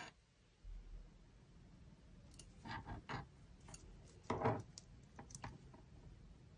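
Faint, scattered clicks and taps of steel double-pointed knitting needles and a metal safety pin knocking together as knitted stitches are slipped off the needle onto the pin.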